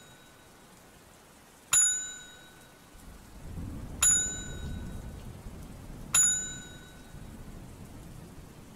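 Notification-bell sound effect dinging three times, about two seconds apart, each a bright metallic ding that rings out briefly. Under the dings runs a steady hiss of rain, with a low rumble building about three seconds in.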